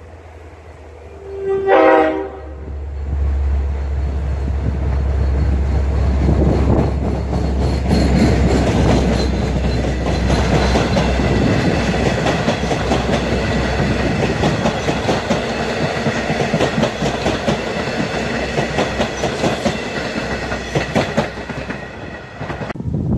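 Long Island Rail Road diesel train sounding one short horn blast as it approaches. It then passes close by: a deep diesel locomotive drone, and the rumble of C3 bilevel coaches with wheels clicking over the rail joints. The sound drops away near the end as the last car goes by.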